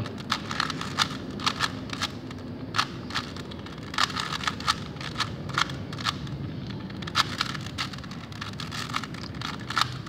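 A 3x3 Rubik's cube being turned by hand: an irregular run of plastic clicks and clacks as its layers are twisted round, several a second.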